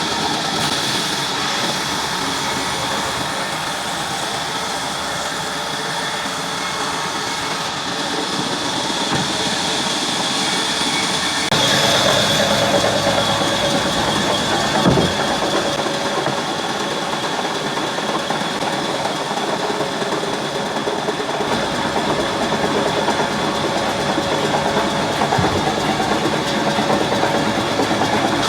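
Sawmill saw machine running steadily with a constant high whine, growing louder about twelve seconds in as it works, with a single knock a few seconds later.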